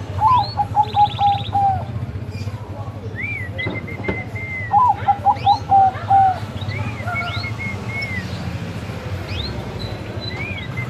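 Bangkok-type perkutut (zebra dove) cooing: two phrases of quick, stuttering notes, each about a second and a half long, the second about four and a half seconds after the first. Higher chirps from other birds sound in between over a steady low hum.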